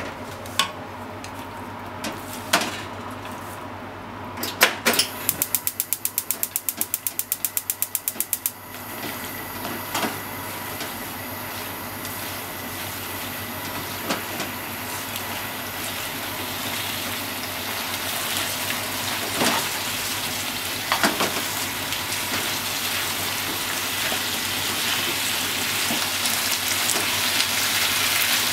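Gas stove igniter clicking rapidly for about three seconds until the burner lights, then the stir-fry of pork, shimeji mushrooms and onion in the frying pan starts to sizzle, growing steadily louder as it heats. A few knocks of the wooden spatula and chopsticks against the pan.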